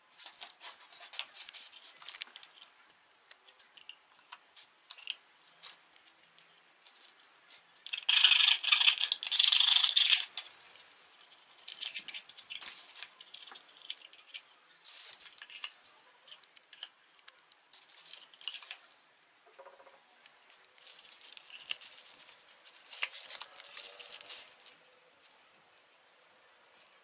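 Handling noises at a workbench: scattered clicks, knocks and rustles as PVC pipe pieces, a phone and a tape measure are picked up and set down on foam and bubble wrap, with a louder scraping rattle that lasts about two seconds, starting some eight seconds in.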